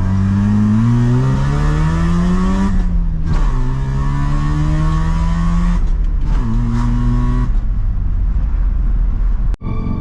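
Mazda RX-7's rotary engine accelerating through the gears: the pitch rises, drops at a shift about three seconds in, climbs again, drops at another shift around six seconds, then settles lower off the throttle. The sound breaks off abruptly near the end.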